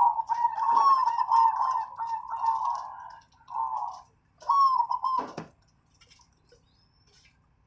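Zebra dove (perkutut) cooing: a run of repeated rolling coo phrases with quick pitch slides, with faint higher chirps over them. A single sharp knock comes about five seconds in, and the cooing stops.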